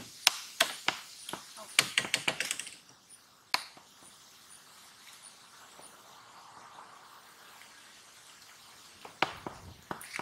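Plastic cups and a lemonade pitcher handled on a plastic table: a quick run of sharp clicks and taps in the first few seconds, then a quiet stretch, and a few more clicks near the end.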